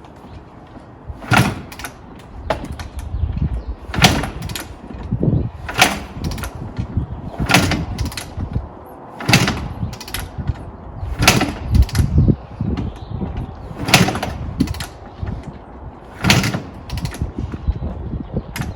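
A 2007 Kawasaki KX250's kickstarter being kicked over and over for the bike's first start after a rebuild: about eight sharp clunks, roughly one every two seconds, each with a short turning-over rumble of the two-stroke single, and the engine does not settle into running.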